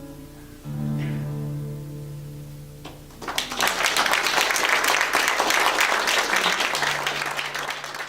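The song's final chord ringing out on the instruments, struck again about a second in. About three seconds in, audience applause breaks out and continues.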